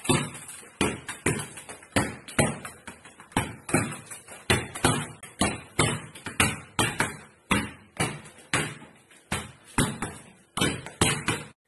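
A football being kicked repeatedly against a wall and rebounding, a steady run of sharp thuds at about two to three a second, with a short echo off the tiled room.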